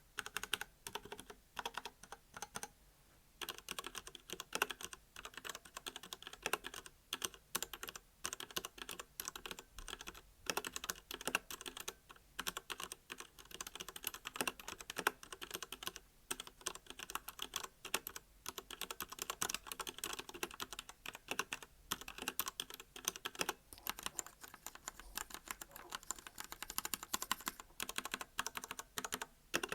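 Typing on a Royal Kludge RK68 mechanical keyboard with red linear switches: a fast, continuous run of key clacks, with a brief pause about three seconds in.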